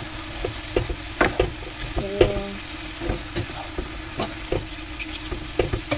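A wooden spatula stirs and scrapes through sliced turkey and vegetables in a nonstick frying pan, knocking against the pan in irregular clicks over a steady sizzle of frying.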